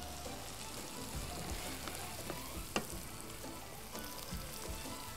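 Chopped onions frying in a pan with a steady light sizzle as they are stirred with a wooden spoon. The onions are still pale, early in frying. A single sharp knock comes a little under three seconds in.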